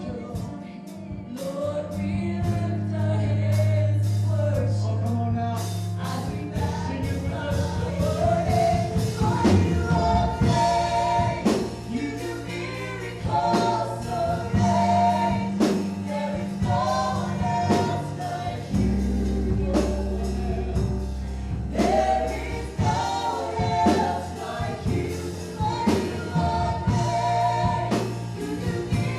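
Live gospel worship music: a band with bass and drums, with singers joining in together like a choir.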